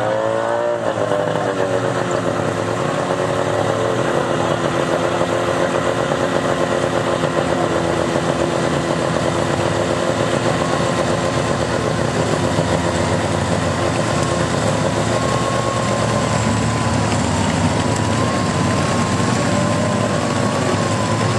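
Engine of a vintage tracked snow vehicle running steadily as it drives over snow, its pitch dropping about half a second in and climbing again near the end.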